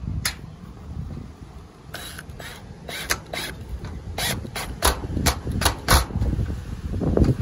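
A run of about a dozen sharp clicks and knocks from handling the steel shed's panels and screws, over a low rumble.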